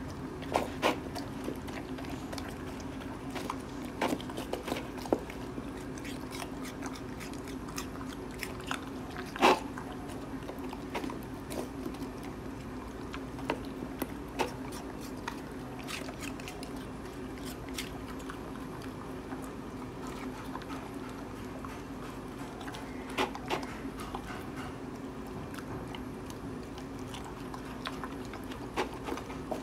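Golden retriever eating chunks of apple and pineapple from a plastic bowl: irregular crisp crunches and chewing, the loudest crunch about nine and a half seconds in. A steady low hum runs underneath.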